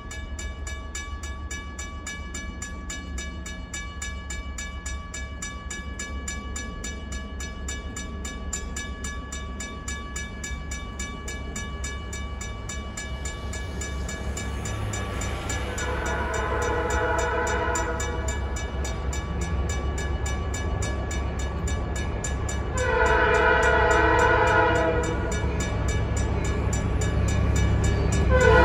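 Railroad crossing bell ringing steadily as an R J Corman switcher locomotive approaches, its low engine rumble growing louder. The locomotive's horn sounds two long blasts a little past the middle and about five seconds apart, and a third blast begins right at the end: the crossing signal for the grade crossing.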